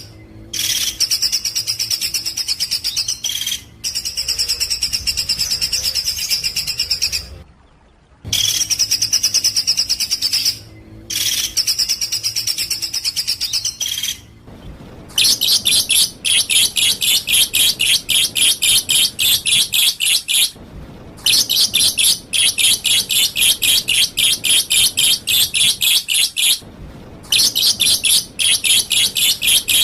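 Songbird song: high, rapid trilled phrases a few seconds long with short breaks, changing about halfway through to a fast run of sharp repeated chirps, several a second, broken by brief pauses.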